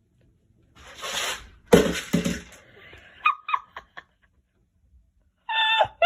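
A noisy rush and a loud knock, then several short high animal cries and a longer one near the end.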